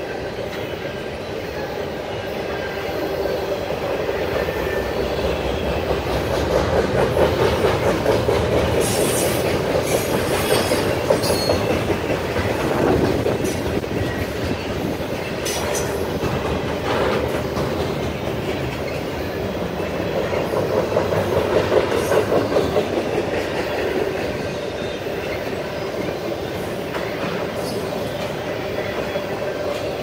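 Double-stack intermodal train's well cars rolling past: a steady rumble and rattle of steel wheels on rail that swells and eases as the cars go by, with a few brief high squeals from the wheels.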